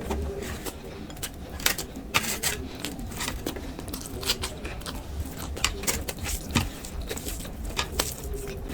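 Close-miked eating sounds of a person chewing spicy chicken and khichdi: irregular mouth clicks and smacks, several a second, over a steady low hum.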